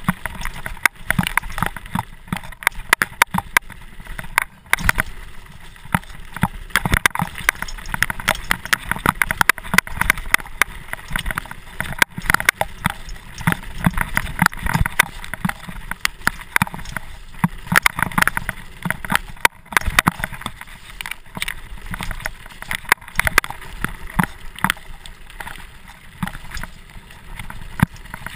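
Mountain bike clattering over a rough dirt singletrack: a constant, irregular stream of knocks and rattles from the bike jolting over roots and stones, over a rough rush of tyre and riding noise.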